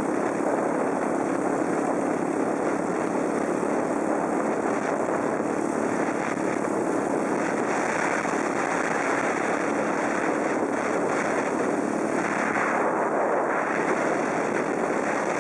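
Steady rushing noise of travel along a snowy trail, with a faint steady hum underneath.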